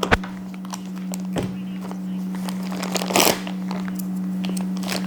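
Thick plastic bag crinkling and crackling as it is handled and torn open, with a few sharp clicks and a louder rustle about three seconds in. A steady low hum runs underneath.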